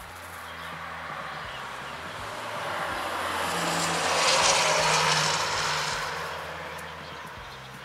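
A vehicle passing by: a steady engine hum with a rushing noise that grows louder to a peak about four and a half seconds in, then fades away.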